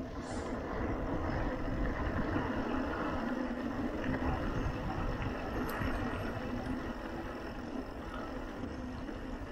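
Mountain bike rolling on a concrete road: a steady rumble of tyre noise and wind on the microphone, slightly louder in the first half.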